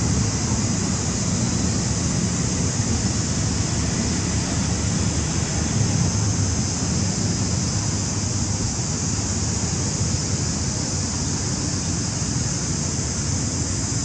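Steady noise with no distinct events: wind rumbling and fluttering on the microphone under a constant high hiss.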